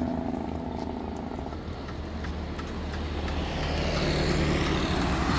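Road traffic: a car approaching, its engine and tyre noise growing steadily louder over the second half, after an earlier vehicle's engine fades in the first second or so.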